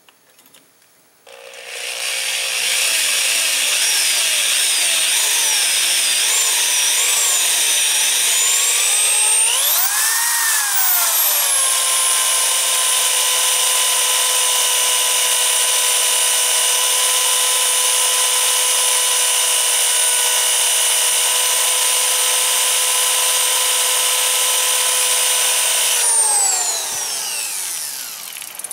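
Electric drill boring a hole through the steel trigger plate of a 330 Conibear trap. The motor starts about a second in with a steady whine, rises in pitch briefly, holds steady, then winds down with a falling whine near the end.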